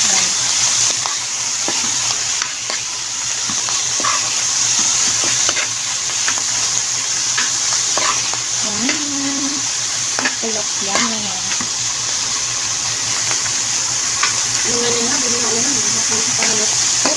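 Sliced chicken breast and mushrooms sizzling in oil in a frying pan, with a steady hiss, while a spatula stirs them, clicking and scraping against the pan now and then.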